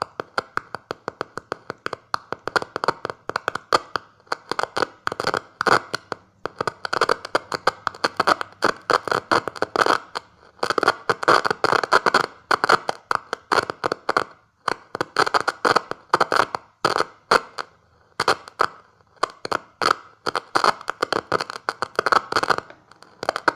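Morse code keyed by hand, with two screwdrivers touched together as the switch contacts. It comes as rapid, irregular clicks and short buzzy crackles in groups, with brief pauses between groups.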